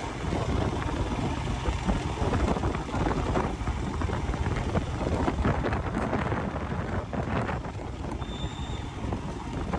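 Royal Enfield Himalayan 411 motorcycle riding at a steady road speed: its single-cylinder engine running under heavy wind buffeting on the microphone.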